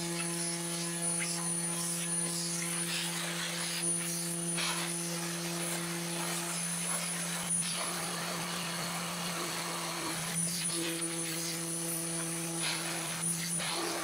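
Desktop CNC router's spindle running with a steady hum and high whine as its end mill cuts into a pine board, with scattered short crackles from the cut; a dust-collection vacuum runs alongside.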